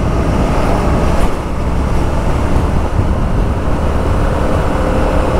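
Motorcycle riding at speed: wind rushing over the microphone, with the Yamaha XSR 700's parallel-twin engine running steadily underneath. A faint steady engine tone comes through near the end.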